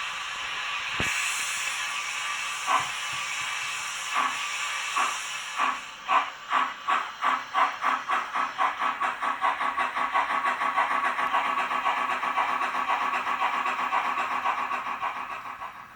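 Steam locomotive pulling away: a hiss of steam, then exhaust chuffs that come slowly and unevenly at first and quicken into a steady beat of about four a second, fading at the end.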